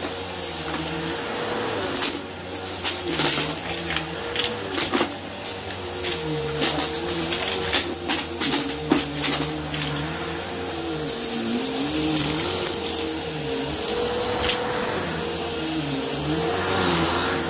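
Bissell upright vacuum cleaner running over a thick pile rug, with a steady high whine and a lower hum that wavers in pitch as it is pushed and pulled. Frequent sharp crunches and clicks come from crumbs and debris being sucked up, thickest a few seconds in and again about halfway.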